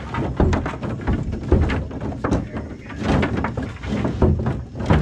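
Wooden tobacco sticks clattering and knocking together as they are handled and stacked in a pickup truck bed, in many irregular knocks.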